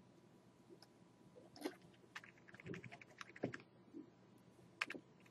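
Faint, scattered clicks of a computer keyboard and mouse, with a quick run of clicks a little after two seconds in.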